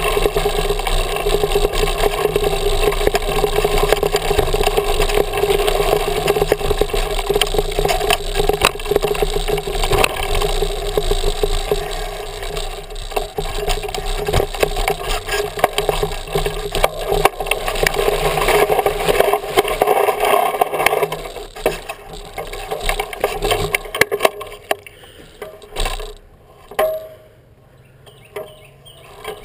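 Mountain bike rattling and clattering as its tyres roll over bare rock and loose stones, with many sharp knocks. Quieter in the last few seconds, with a few separate knocks.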